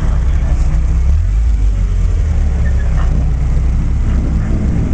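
Low, steady engine rumble of sports cars driving slowly past: a mid-engined Ferrari V8 going by, then a DeLorean's V6 approaching.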